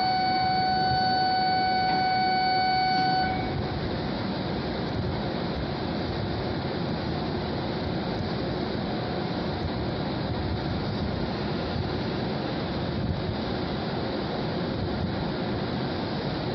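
A steady electronic warning tone sounds for about the first three seconds and cuts off. It is followed by the even, steady hum of a W7 series Shinkansen train standing at the platform.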